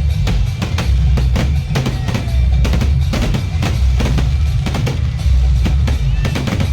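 Loud music with a heavy, pulsing bass and a steady drum-kit beat of bass drum and snare strokes.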